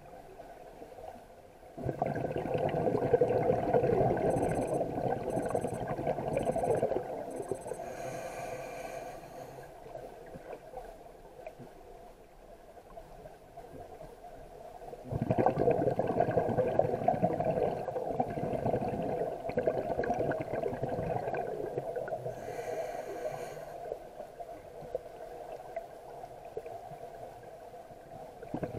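Scuba diver breathing through a regulator underwater: two long exhalations of bubbling, one about 2 s in and one about 15 s in, each lasting about five seconds, with quieter inhales between.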